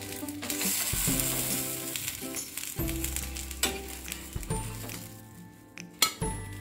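Moong dal dosa sizzling on a hot griddle while a steel spatula scrapes under it and rolls it up. There are scattered clinks, and a sharp clink near the end as the spatula meets the plate. Background music plays underneath.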